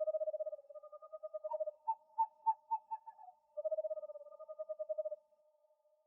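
Owl calling: a fast, even, pulsing trill on a low note, then a string of about six short, slightly higher notes, then the pulsing trill again.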